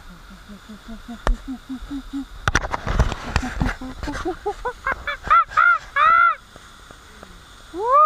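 A man's voice hooting a string of short 'oo' calls that climb steadily in pitch, from low up to a high falsetto, the notes getting longer as they rise. One longer falsetto hoot comes near the end. A few knocks and rustles of the camera being handled come in the middle.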